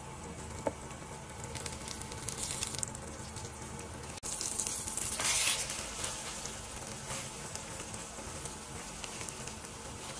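Egg and cha-om omelette sizzling in oil in a nonstick frying pan, worked with a wooden spatula. The sizzle swells louder twice, about two and a half seconds in and again around five seconds in.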